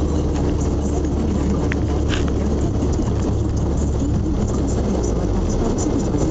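Car cabin noise while driving: steady engine and tyre rumble, with a few brief clicks about two seconds in.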